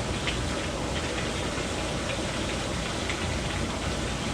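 Hot tub jets running, the water churning and bubbling in a steady rush with small splashing ticks.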